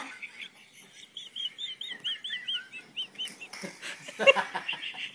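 A small bird chirping: a quick run of about a dozen short, high chirps, followed by a single knock about four seconds in.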